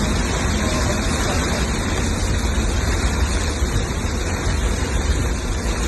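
Torrential rain pouring steadily: a dense, even hiss over a low rumble.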